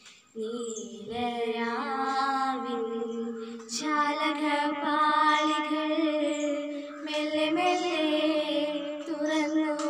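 A girl singing a slow melody into a handheld microphone, holding long notes, after a short pause for breath at the start.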